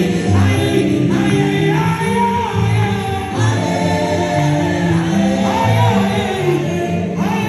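Live gospel music: a woman singing into a microphone over keyboard and bass accompaniment, amplified through a PA system.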